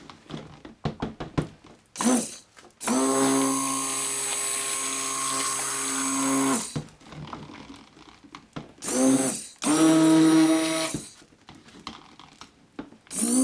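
Immersion (stick) blender pulsed in a plastic jug of cold-process soap batter: a steady motor hum in five bursts, the longest nearly four seconds, with light clicks in between.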